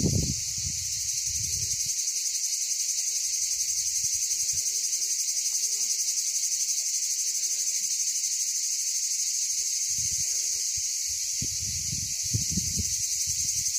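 Steady, high-pitched chorus of insects with a fast, even pulse. Low rumbling noise comes in briefly at the start and again in the last few seconds.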